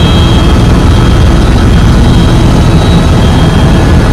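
Helicopter in flight, heard from inside the passenger cabin: a loud, steady rumble of engine and rotor, with a faint steady high whine over it.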